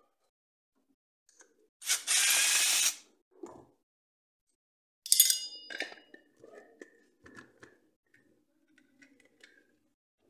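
Handling noises as the fixed stock is worked off a Cyma AK47 airsoft electric gun: a loud scraping rasp about two seconds in lasting about a second, a sharp metallic clink with a brief ring about five seconds in, then light clicks and rattles of parts and wires.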